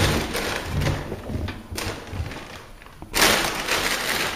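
Laundry being stuffed by hand into a front-loading washing machine drum: fabric rustling with soft thumps, getting louder about three seconds in.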